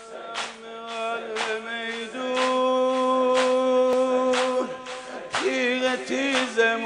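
A man singing a Shia mourning lament (noheh) into a microphone in long held notes that step up in pitch about two seconds in and waver near the end. Sharp rhythmic strikes sound under the voice about once a second.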